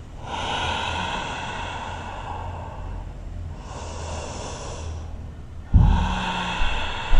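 A woman breathing slowly and deeply through the nose and throat while holding a yoga pose: long hissing breaths with short pauses between them. About six seconds in, a louder breath gusts onto the microphone with a low rumble.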